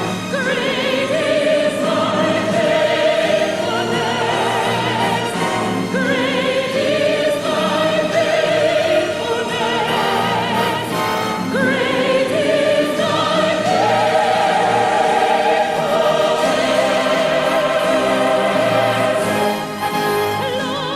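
Choir and orchestra performing a Christmas choral arrangement, with voices holding long, wavering notes over the orchestra.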